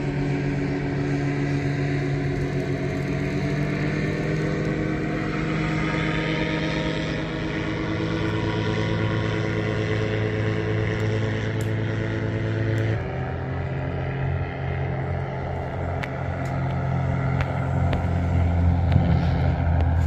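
Passing lake freighter's engines droning: a low hum with several steady tones above it. The tones shift suddenly about two-thirds of the way through, and the drone grows a little louder near the end.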